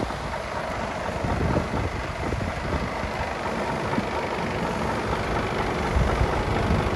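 Mercedes-Benz Actros 2445's 450 hp Euro 6 diesel, a 12.8-litre straight-six, idling with a steady hiss over an uneven low rumble.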